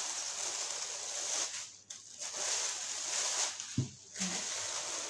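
Thin plastic bag crinkling and rustling as it is pulled off a frying pan, in three spells with short pauses between, and a light knock about two-thirds of the way through.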